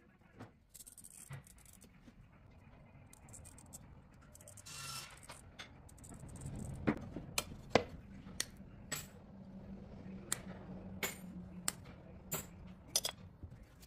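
Cut pieces of stained glass clinking and tapping as they are set down and shifted on a paper pattern on the bench, with a short scrape about five seconds in and a run of sharp separate clicks through the second half.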